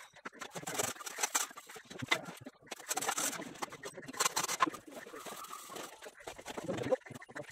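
Masonry work sped up eightfold: irregular scraping and tapping of masons spreading and levelling cement mortar, run together into a rapid, garbled clatter.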